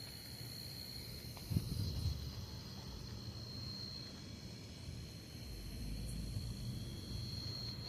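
Insects, crickets or similar, trilling in a steady high chorus over a low outdoor rumble. The rumble swells a little about two seconds in and again near the end.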